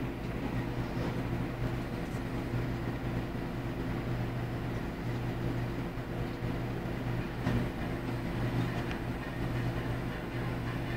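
A vehicle engine running steadily, an even low hum that holds the same speed throughout.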